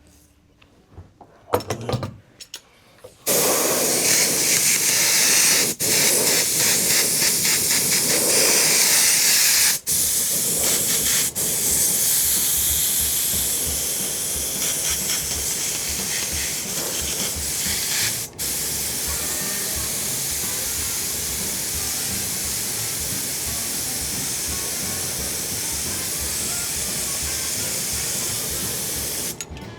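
Spray adhesive hissing from a spray nozzle in long continuous passes, starting about three seconds in, with a few very brief breaks where the trigger is released. Used here to glue upholstery foam.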